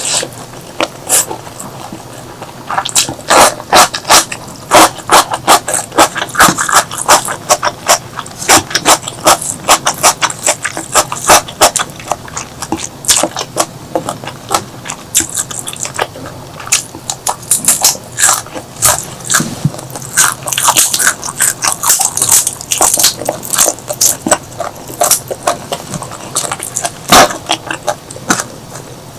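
Close-miked eating: a person chewing and biting food, with many sharp, irregular wet mouth clicks.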